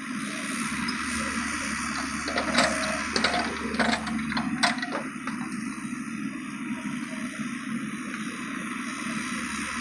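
Kubota U50 mini excavator running steadily, with a few sharp metallic knocks and clanks from about two to five seconds in.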